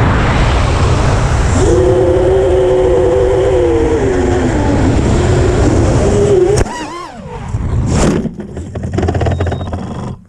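Racing quadcopter's four brushless motors (2205, 2300KV) and propellers whining under heavy wind noise on the onboard camera's microphone, the motor pitch wavering and sagging. About six and a half seconds in the level drops sharply, the sound comes and goes with gliding tones, then cuts off near the end.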